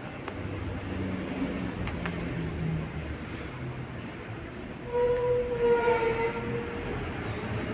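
A steady low rumble of a passing train, with a train horn sounding once as a steady tone for about a second and a half, about five seconds in.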